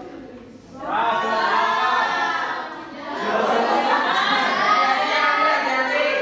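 Choral vocal music: several sung voices holding long notes, swelling in about a second in, easing briefly near three seconds, then swelling again.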